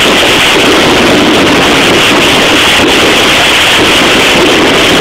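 Mascletà: a dense barrage of firecrackers going off so fast that the bangs merge into one steady, unbroken roar, very loud on a phone microphone.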